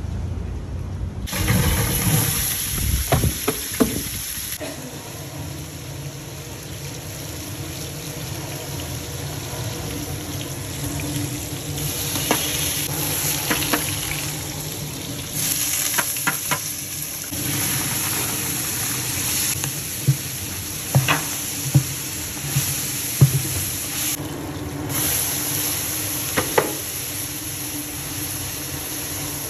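Shallots sizzling in oil in a huge aluminium cooking pot, stirred with a long wooden paddle that knocks against the pot now and then. A low rumble fills the first second or so before the sizzling starts.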